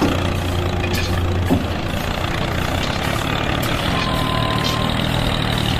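Steady engine-like running noise from a mini tractor machine, with a constant low hum. A faint thin steady tone sounds briefly about four seconds in.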